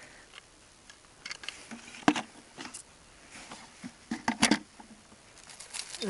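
Scattered light knocks, clicks and rustles of someone handling things while looking for tools, with a sharper knock about two seconds in and a quick cluster of knocks about four and a half seconds in.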